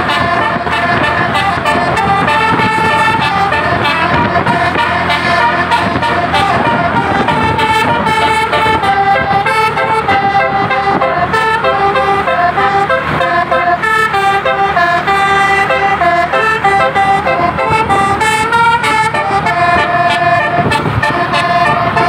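Bus basuri horn, a multi-tone musical air horn, playing a melody: held horn notes step from one pitch to the next without a break.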